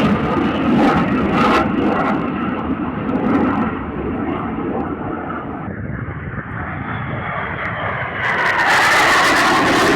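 Fixed-wing aircraft flying over with a loud engine roar. The roar dulls through the middle and brightens again about 8 seconds in.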